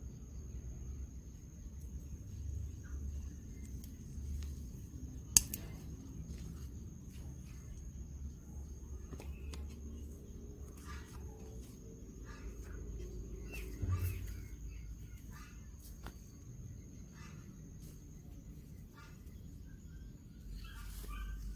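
Outdoor background sound: a low rumble of wind on the microphone, faint short bird chirps, and a thin steady high-pitched whine that stops near the end. A sharp click comes about five seconds in, and a dull bump about fourteen seconds in.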